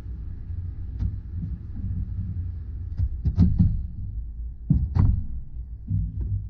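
A few sharp metallic knocks and clanks, a cluster of them in the middle and a couple more near the end, over a steady low rumble, as of tools and parts being handled during rear shock absorber and coil spring work on a car.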